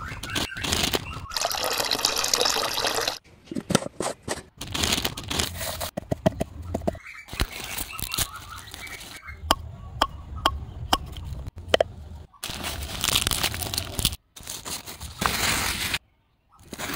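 Hands and small objects working in damp sand: scraping and crunching, with sharp clicks and taps, in short pieces that stop and start abruptly.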